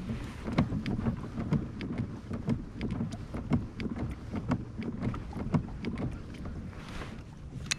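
A fishing kayak knocking lightly and evenly, about two knocks a second, over a low wind rumble on the microphone.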